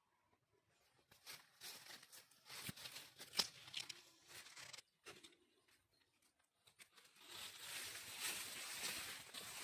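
Tall grass rustling as a person walks through it, in two stretches with a short quiet gap about halfway.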